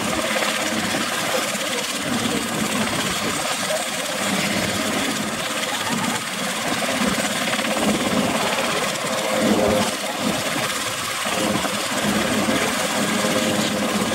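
Eurocopter AS332L1 Super Puma helicopter running on the ground with its rotors turning: a steady mix of twin turboshaft engine noise and rotor noise.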